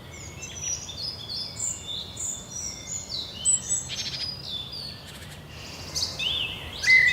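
Forest birds singing: a run of short, high whistled and chirped notes, many of them falling in pitch, from several birds at once, over a faint steady background hiss. It eases off briefly past the middle, then lower, louder up-and-down phrases come in near the end.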